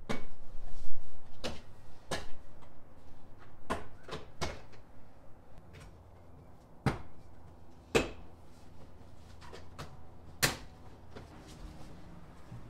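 Plastic interior trim panels of a Ford F-150 cab being pulled off by hand: a string of sharp snaps and clicks, irregularly spaced a second or more apart, as the panel clips let go.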